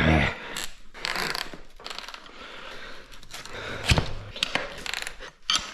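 Tire levers working a tight rear motorcycle tire bead over the rim: rubber scraping and creaking, with several sharp clicks and clanks of the metal levers against the rim.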